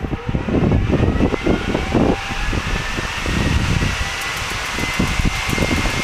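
Circa-1954 Fairchild J44-R-24 turbojet spooling up during its first light-off: a whine that rises steadily in pitch and levels off near the end, under a growing rush of air. Gusts of wind buffet the microphone in the first few seconds.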